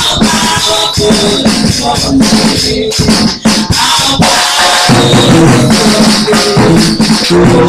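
Live praise and worship music: a group of singers sings through microphones and a PA, over drums and rattling hand percussion.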